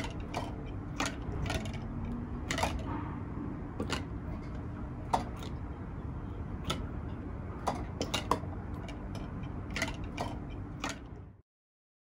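Closing part of the background music track: sparse, irregular clicks and ticks over a low steady hum, cutting off about eleven seconds in.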